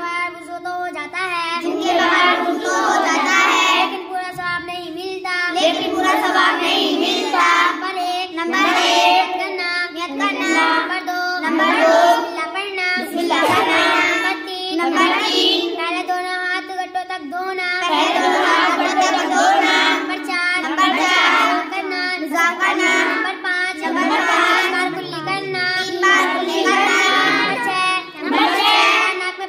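A young girl's voice reciting in Urdu, nearly without pause, as she lists the sunnahs of ablution from memory.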